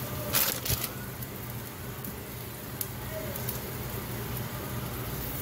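Consommé-dipped tortilla and chopped onions and peppers frying on a hot cast-iron griddle pan, a steady sizzle with two brief louder bursts of hiss about half a second in.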